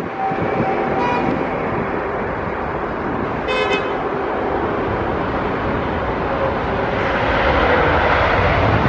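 Jet engines of an inbound Avianca airliner approaching to land: a steady rushing noise with a thin engine whine that grows louder over the last two seconds. A short toot sounds about three and a half seconds in.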